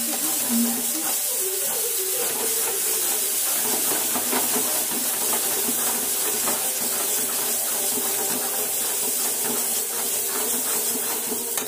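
Onion-tomato masala sizzling in a pan over a gas flame as it is stirred with a spoon: a steady hiss with many small crackles.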